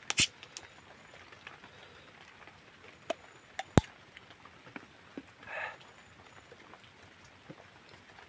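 Cap of a small plastic Sprite bottle being twisted open by hand: sharp plastic cracks and clicks. The loudest comes just after the start and another a little under four seconds in.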